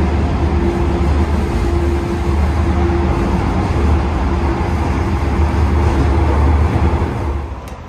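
Diesel engine of an NSB Di 4 locomotive (an EMD 16-645 V16 two-stroke) working hard, heard from the coach gangway right behind it as a loud, steady low drone with a steady higher tone. The sound falls away just before the end.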